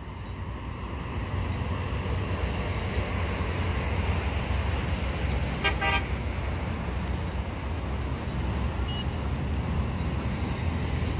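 Diesel locomotive engine rumbling low and steady as a passenger train pulls slowly into the station, getting louder over the first couple of seconds. One brief toot of the horn comes a little before the middle.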